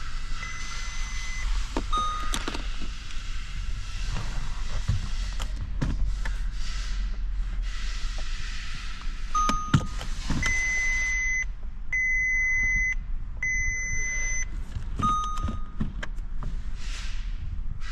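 Electronic beeps, each about a second long and steady in pitch, come in two runs: three near the start and three more from about ten seconds in. Between them are a few short chirps and scattered clicks and knocks over steady background noise.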